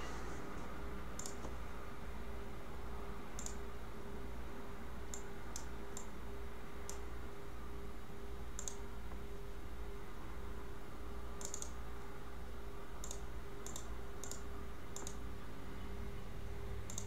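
Faint, scattered computer clicks at uneven intervals, some in quick pairs, over a steady low hum.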